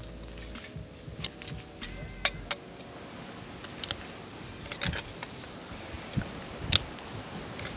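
Scattered sharp metallic clicks and clinks of brass pipe fittings and a wrench being handled while a plumbing assembly is put together, about one a second, the loudest near the end.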